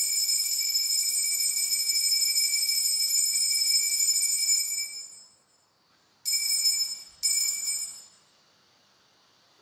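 Altar bell rung at the elevation of the chalice during the consecration. It gives a long, steady, high ring that fades out about five seconds in, then two short rings of about a second each.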